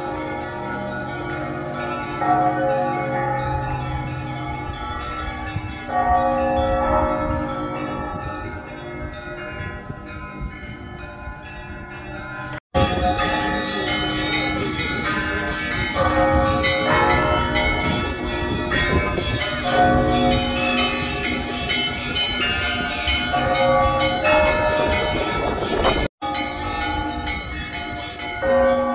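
Orthodox church bells ringing a festive Easter peal from a bell tower: many bells of different pitches struck in quick succession, their tones overlapping and ringing on. The sound cuts out briefly twice.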